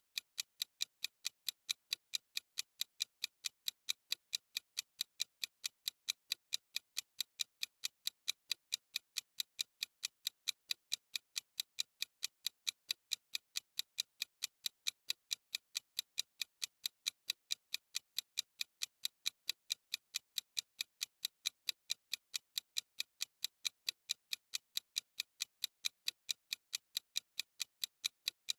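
Clock ticking sound effect of a countdown timer: light, sharp ticks, evenly spaced and at a steady level.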